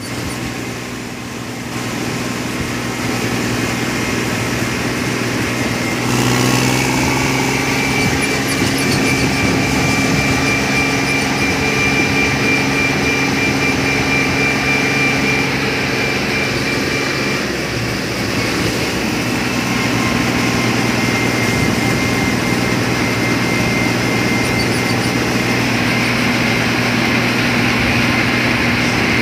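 Farmtrac 60 tractor's diesel engine running at high revs as it drives along a road, with a thin steady high whine above the engine note. The engine gets louder about two and six seconds in and eases briefly around eighteen seconds before picking up again.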